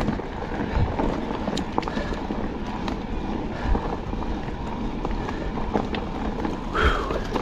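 Cube Stereo Hybrid 160 electric mountain bike riding along a dirt woodland single track: steady tyre noise on the dirt with irregular knocks and rattles from the bike over bumps.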